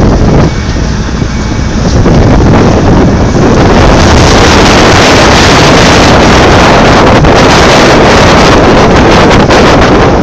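Loud, almost unbroken wind buffeting the microphone over the running of a Komatsu PC8000 mining excavator, easing slightly for about a second near the start.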